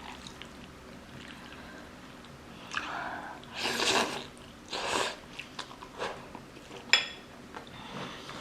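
Person eating spicy instant noodles: quiet chewing, then two loud airy sucking sounds about a second apart around the middle, and a single sharp click near the end.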